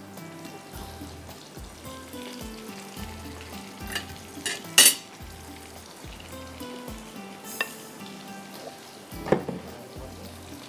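A spatula stirring and scraping in a glass bowl of boiled tomatoes and chillies, with a few sharp clinks against the glass, the loudest about five seconds in, over a faint sizzle of frying.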